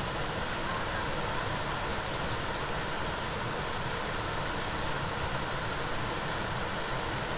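Steady rushing of creek water from a waterfall, an even hiss-and-rumble that does not change.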